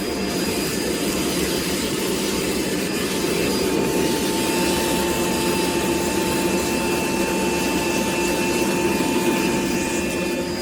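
DEWALT DCV580H 20V MAX wet-dry shop vacuum running steadily: a motor whine with steady tones over rushing air.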